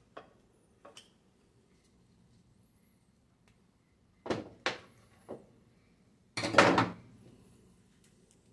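Hand tools being handled on a workbench: a couple of light clicks, then a few knocks a little after four seconds in, and a louder clatter around six and a half seconds as the cut screwdriver and pliers are moved and picked up.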